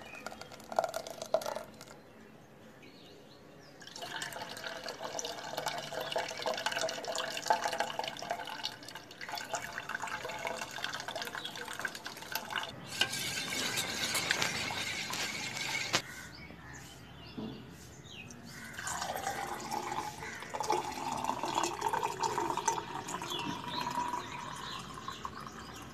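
Pomegranate juice poured in a thin stream, splashing into a steel bowl and later filling a glass. It comes in several pours with short lulls between them.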